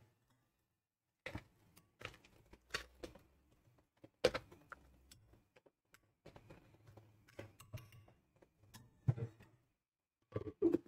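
A spoon scraping and knocking inside a glass blender jar as thick cocoyam paste is turned over. It comes as a scatter of short clicks and taps at uneven intervals, with the blender motor off.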